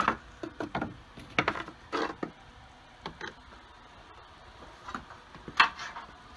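Irregular knocks, taps and clicks of hands working around the truck's front end, a metal transmission cooler line being handled and bumping against parts. The clicks come in a cluster at the start, then again near the end, the loudest just before the end.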